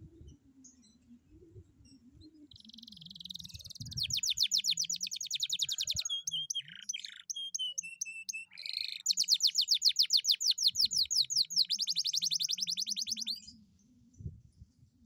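Domestic canary singing a long song: a short buzzy phrase, then rapid rolling trills of quick falling notes, about a dozen a second, broken by a few slower varied notes in the middle. The song stops about 13 seconds in.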